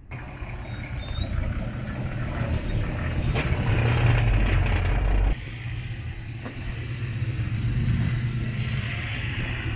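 Off-road 4x4 engines running low and slow as the vehicles crawl down a steep loose-dirt slope, a deep rumble with tyre and dirt noise over it. The sound changes abruptly about five seconds in.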